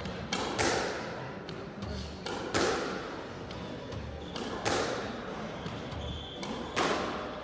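Squash ball being driven with a racket in a solo forehand drill: four rounds of sharp cracks with ringing court echo, about every two seconds, each a racket strike followed a moment later by a louder smack of the ball on the front wall.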